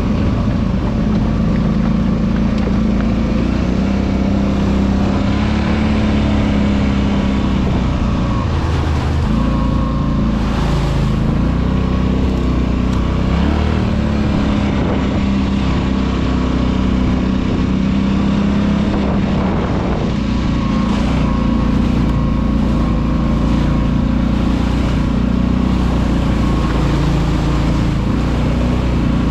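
ATV engine running under way, its pitch rising and falling as the throttle is worked.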